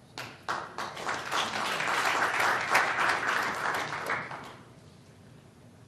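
Audience applauding: a few scattered claps that quickly build into full applause, which dies away after about four and a half seconds.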